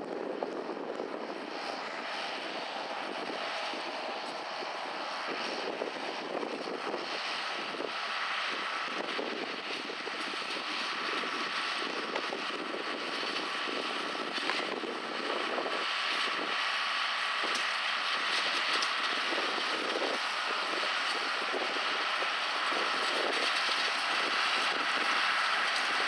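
John Deere tractor running steadily at working speed, pulling a Claas rotary rake through cut grass. The sound grows gradually louder.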